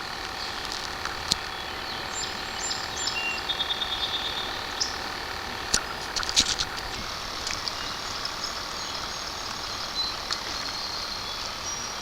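Outdoor ambience: a steady background rush with birds chirping, including a quick high trill, and a few sharp clicks. A steady hum stops about seven seconds in.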